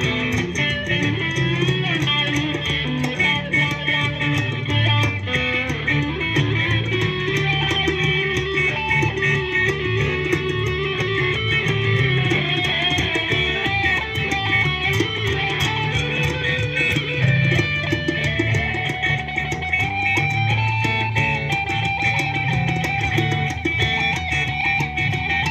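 Live band music over PA speakers: electric guitar over bass guitar with a steady beat.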